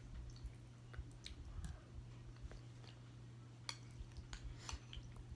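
Metal spoon clicking and scraping against a ceramic bowl, with soft chewing as someone eats homemade jelly from it.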